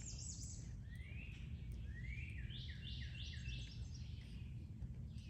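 Songbird singing: a rising note, then a quick run of about half a dozen repeated notes near the middle, over a steady low background rumble.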